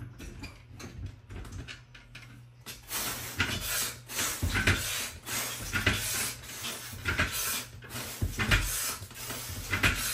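Pull-up bar creaking and clicking under load in a rhythm of about one stroke a second, starting about three seconds in, as pull-up repetitions are done.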